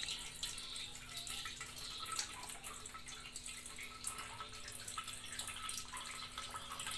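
Coconut milk dripping and trickling through a plastic sieve into a metal pot as wet grated coconut is squeezed by hand.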